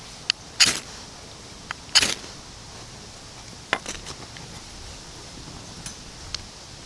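A large knife's spine scraped hard down a ferrocerium rod twice, two sharp rasping strikes about a second and a half apart, throwing sparks that light a tinder bundle. A few lighter clicks follow later.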